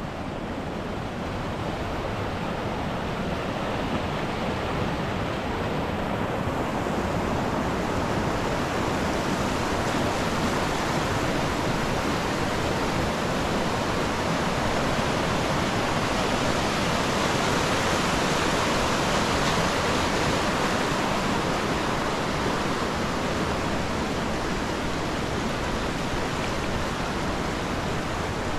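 Steady rush of fast-flowing river water. It swells gradually, brightest about two-thirds of the way through, then eases a little near the end.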